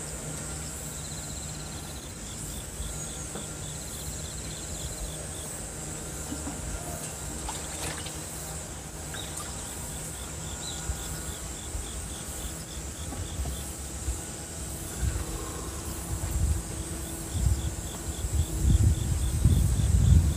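Insects chirping in repeated trains of rapid pulses that come and go, over a steady outdoor background. Low rumbling bumps grow louder near the end.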